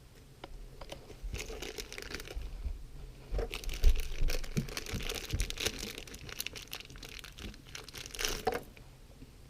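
Crinkling and clicking of small plastic parts and plastic packaging being handled, in an irregular run of sounds with a louder knock about four seconds in.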